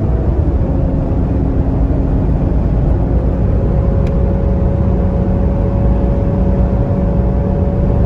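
Cabin noise of a 2020 Mercedes-AMG GLE 53 Coupé driving fast on the motorway: a steady, dense low rumble of road and wind noise, with a faint steady hum from its 3.0-litre inline six-cylinder engine.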